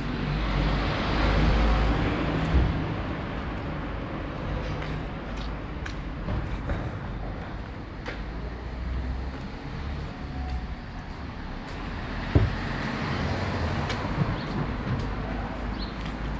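Street traffic: vehicles passing over a steady low rumble, with louder passes about a second in and again around thirteen seconds. A single sharp knock comes about twelve seconds in.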